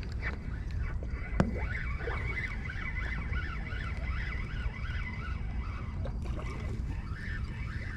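Low wind rumble on the microphone, with a sharp click about a second and a half in and a run of short, quickly repeated high chirps through the middle and again near the end.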